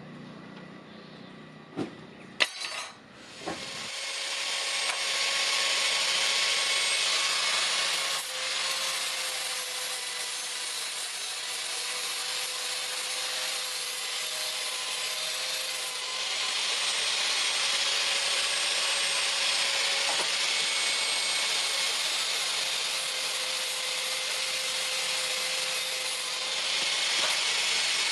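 A power grinder working steel. After a couple of sharp knocks, it sets in a few seconds in as a steady hiss over a constant motor whine and keeps going.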